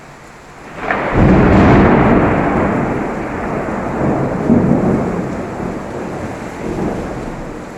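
A loud thunderclap breaks about a second in and rolls on, fading over several seconds with a couple of renewed rumbles, over steady rain.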